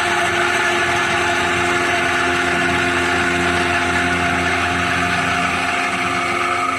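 CNC milling machine running steadily, a whine of several held tones over a noisy hiss, with the whine changing pitch near the end.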